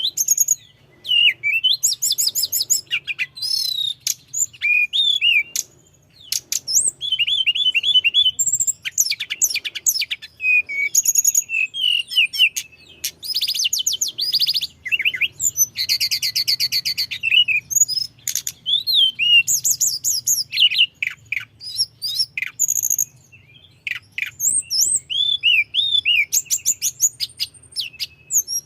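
A tledekan gunung songbird singing non-stop in fast, varied phrases: whistled rising and falling notes, rapid trills and buzzy chattering runs, barely pausing between bursts, over a faint low hum.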